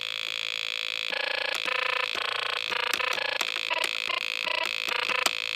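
Dying electronic keyboard giving out loud, annoying sounds: a steady high-pitched whine throughout, with buzzy pitched tones breaking in from about a second in, in irregular bursts, some held for half a second and some cut short.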